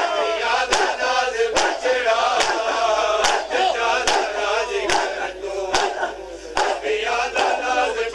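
Crowd of men doing matam, striking their chests in unison in a steady beat a little faster than one strike a second. Men's voices chant and shout a noha over the strikes.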